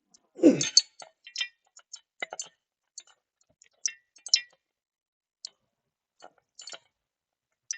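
Irregular clicks and clinks of hand tools and metal parts being handled during mechanical assembly, with one heavier knock about half a second in followed by lighter, scattered ticks.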